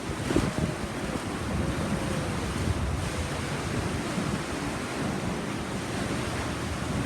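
Wind buffeting the microphone over the steady rush of sea water around a moving boat.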